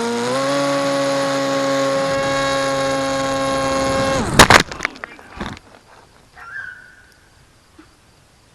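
A small RC plane's electric motor and propeller running at a steady high-pitched hum, then dropping away about four seconds in, followed by a few loud sharp impacts and some clatter as the plane crashes.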